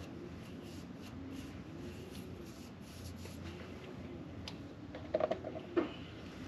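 Soft, faint brushing and rubbing of a paintbrush laying caliper paint onto a brake caliper, with dabs into the paint cup. A few short squeaky sounds come about five seconds in.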